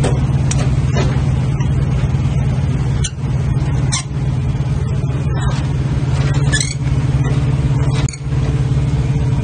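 Semi-truck diesel engine idling steadily close by, a constant low hum, with a few scattered knocks and clicks over it.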